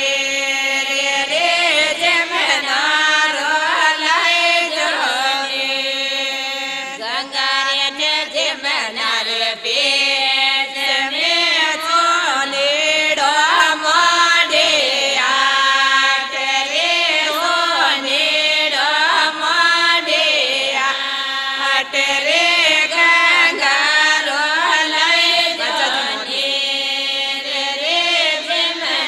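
A women's group singing a Rajasthani Marwari devotional folk song to Ganga Maiya, the voices chanting in chorus in long, bending melodic lines without a break.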